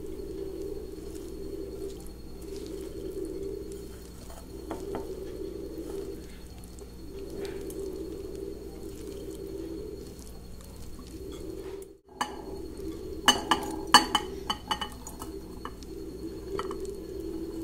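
Kitchen clatter of dishes and glass: several sharp clinks bunched together about two-thirds of the way in, after a brief break in the sound. Throughout, a low cooing repeats in the background, every second or two.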